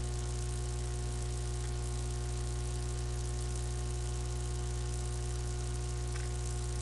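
Steady low electrical hum with a constant hiss underneath, unchanging throughout.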